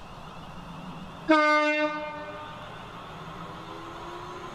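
Class 360 Desiro electric multiple unit sounding its horn once, a short single-tone blast about a second in that fades away, followed by the faint rising whine of the approaching train.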